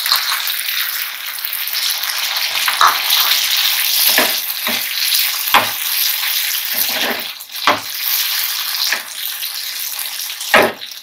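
Diced potatoes and chopped onion sizzling in hot oil in a frying pan, the onion just tipped in. A metal spatula stirs and knocks against the pan about once a second, the loudest knock near the end.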